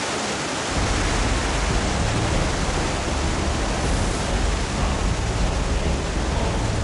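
Steady rush of flowing water in an underground stone tunnel, a continuous loud hiss with a deeper rumble that comes in about a second in.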